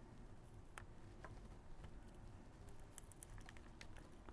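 Faint, scattered small clicks and scratches of the factory seal sticker being picked at and peeled off the back of a PSP's plastic case.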